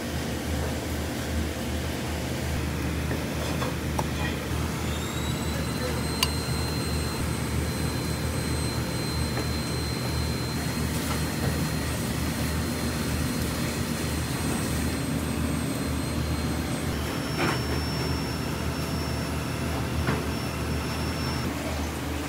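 Steady low mechanical hum of restaurant kitchen machinery. About five seconds in, a thin high whistle rises and then holds for roughly twelve seconds, followed by a briefer, different high tone. A few light clicks and knocks are scattered through.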